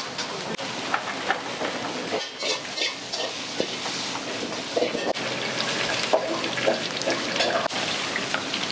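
Food sizzling in a hot wok while a ladle stirs and tosses it, knocking and scraping against the metal in quick irregular strokes.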